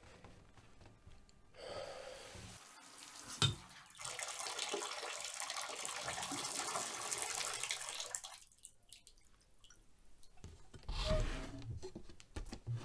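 Water running steadily for about four seconds, just after a sharp click. A low knock follows near the end.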